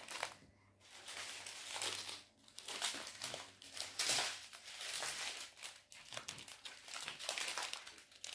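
Plastic crinkling in irregular bursts with short pauses, as the small sealed plastic bags of diamond-painting drills are handled.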